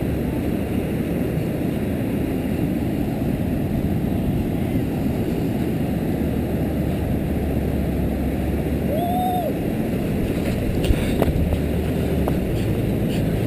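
Wind buffeting the camera's microphone as a steady low rumble, with a car engine running faintly underneath that grows louder near the end as the car approaches.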